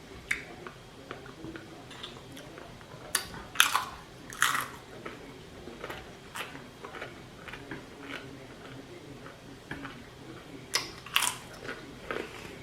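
Close-up chewing of a chicken salad sandwich with slivered almonds: wet mouth clicks and crunching, with a few louder sharp smacks about three to four seconds in and again near the end.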